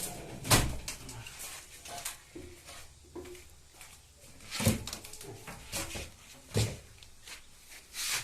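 Four sharp knocks and clunks, spread out with faint rattling between them, from parts and tools being handled while the motor of a front-loading washing machine is being removed.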